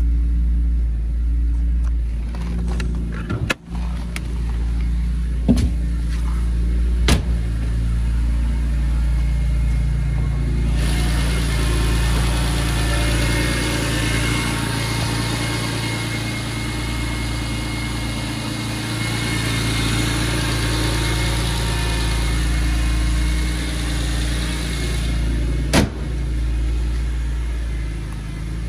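BMW E46 M3's 3.2-litre S54 straight-six idling steadily after a cold start. It sounds brighter and more mechanical from about eleven seconds in, when heard from the open engine bay, and a few sharp knocks come along the way. The seller calls its VANOS clean sounding, with no VANOS issues.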